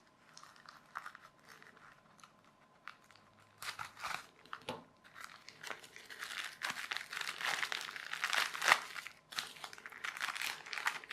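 A small postal package being torn open by hand: a few scattered faint clicks, then about three and a half seconds in, a steady run of crinkling and tearing of the packaging.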